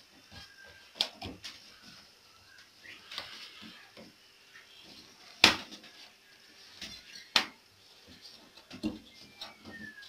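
Hands working a front-loading washing machine's rubber door gasket back into place: scattered rubbing and handling noise with sharp knocks and clicks, the loudest about midway and a couple of seconds later.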